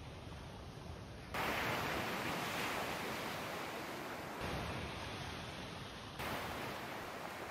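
Sea surf washing onto a sandy beach, a steady wash of waves that jumps suddenly louder about a second in and again near the end.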